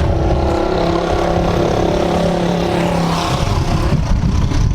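Watercraft engine running under way at a steady pitch, with the rush of water and air around it.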